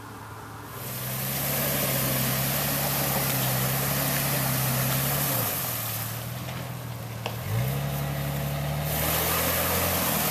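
Jeep Cherokee's engine revved up and held at high revs twice, with a drop in between, while its spinning tyres churn icy water and throw up spray: the Jeep has broken through the ice and is stuck.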